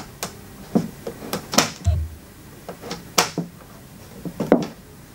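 Paradigm Monitor Surround speaker cabinet being handled and turned on a wooden tabletop: a scatter of light knocks, taps and clicks, with one dull thump about two seconds in.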